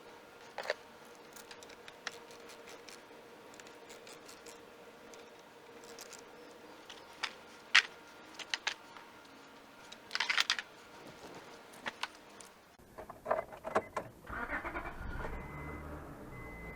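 Keys jangling and scattered clicks and knocks, then, about 13 seconds in, a 2001 Acura MDX's 3.5-litre V6 is cranked and starts, settling into a low, steady run. A repeating beep sounds alongside it. The engine has a misfire.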